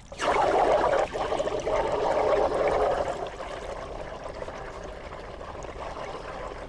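Gas from a lighter-refill can, sold as LPG, bubbling out through soapy water and building a mound of foam, a rushing, bubbling noise. It is louder for the first few seconds, with a short break about a second in, then goes on more softly.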